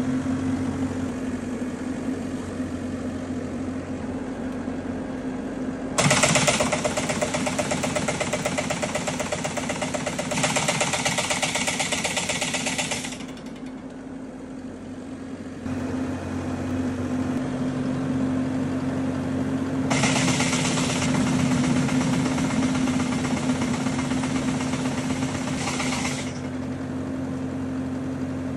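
Tractor engine running steadily, driving a rope-type tree shaker (Kadıoğlu Vibrope Master) strapped to a walnut tree. About six seconds in and again about twenty seconds in, the shaker runs for roughly seven and six seconds, adding a loud, fast rattling vibration over the engine.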